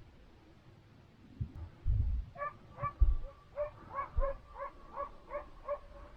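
Hunting dog yelping in a quick run, about two yelps a second, starting a little past two seconds in and going on past the end, with a few low thumps before and under it.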